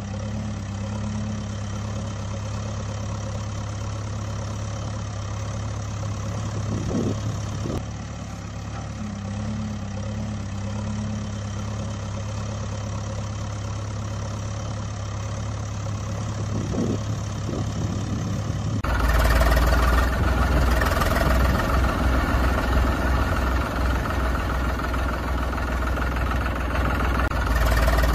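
Engine idling steadily with a low hum; about two-thirds through it cuts abruptly to a louder, deeper-running engine sound.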